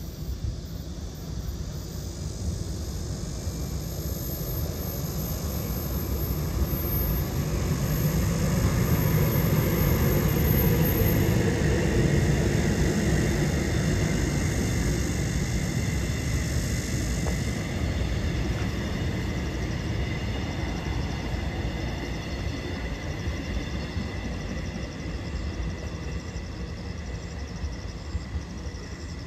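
Korail Mugunghwa-ho passenger train passing by. Its running noise builds to a peak about ten seconds in, then slowly fades as the train goes on.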